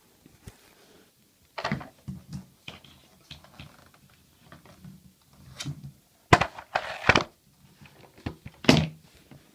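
A vacuum cleaner's attachments being handled and swapped with the motor off: a string of plastic knocks, clicks and clunks, the loudest about six to seven seconds in and another near the end.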